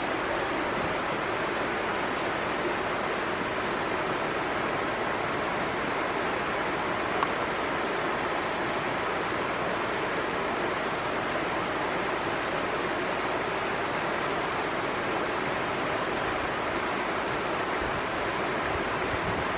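Fast mountain stream rushing steadily over rocks in whitewater rapids.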